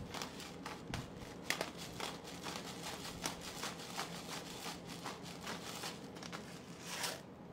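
A hand-twisted black pepper grinder cracking peppercorns: a quick, irregular run of small crunching clicks that stops near the end.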